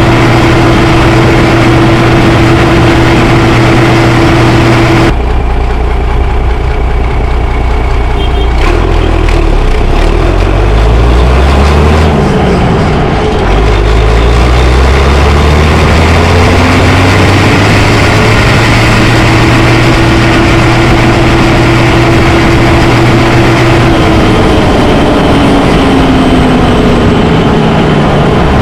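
Fiatagri 90-series tractor's six-cylinder turbo diesel engine pulling on the road. The note changes abruptly about five seconds in, drops and climbs again around the middle, holds steady, then falls near the end as the engine slows.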